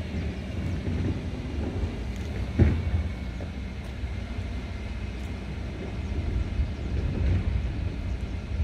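Diesel engine of a refuse collection truck running with a steady low rumble, with one sharp clunk about two and a half seconds in.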